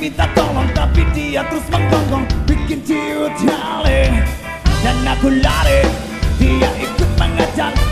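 Live rock band playing, with a male lead singer singing into the microphone over drums, bass and guitars.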